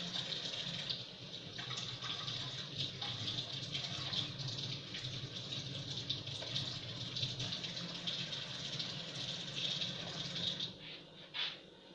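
Water tap running as a freshly cleaned coin is rinsed under it, shutting off near the end.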